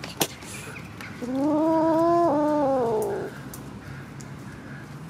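Black-and-white kitten meowing once: a single drawn-out call of about two seconds that rises and then falls in pitch. A short sharp click comes just before it, near the start.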